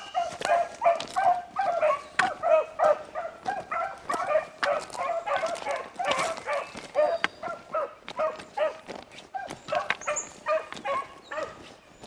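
A pack of beagles baying on a rabbit's track, a rapid string of short, repeated calls from several dogs, with sharp clicks scattered among them.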